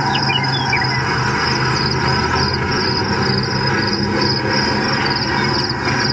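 Steady road and engine noise of a moving car heard from inside the cabin, with a steady high whine over it.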